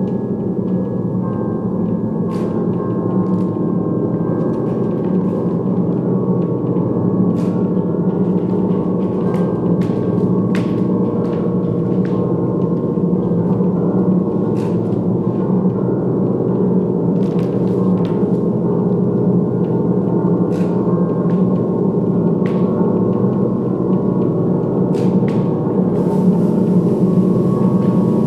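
A steady, gong-like drone of many overlapping sustained tones, unchanging in level, with faint clicks scattered through it.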